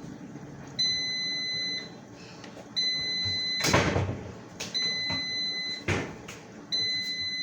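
Electronic alarm beeping: a high, steady beep about a second long, repeating every two seconds, with a few sharp knocks and clatter in between, the loudest about three and a half seconds in.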